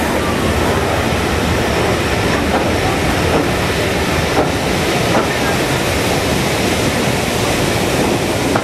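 Passenger carriage of a steam-hauled train running through a brick-lined tunnel: a steady, loud rush and rumble of wheels on rails, with a few faint clicks from the rail joints.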